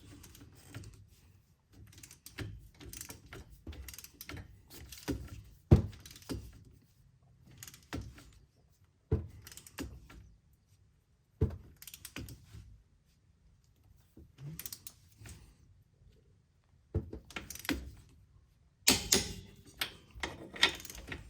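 Torque wrench and socket working the strut bolts: irregular metal clinks, ratcheting and sharp single clicks as the bolts are brought to 89 foot-pounds, with a busier run of clatter near the end.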